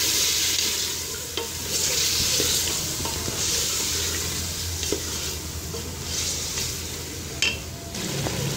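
Beef and spice masala sizzling in hot oil in an aluminium pressure cooker, stirred with a wooden spatula: the sizzle swells and fades with each stroke, about every second and a half. A few light knocks of the spatula against the pot, the clearest near the end.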